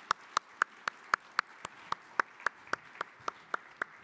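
Audience applauding, with one pair of hands clapping steadily and close to the microphone at about four claps a second over the softer clapping of the crowd.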